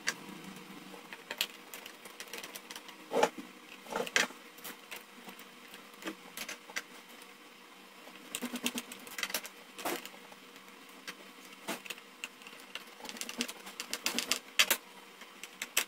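Irregular small clicks and taps as a hand screwdriver drives M3 self-tapping pan-head screws into a plastic mount, with short runs of clicking about halfway through and again near the end.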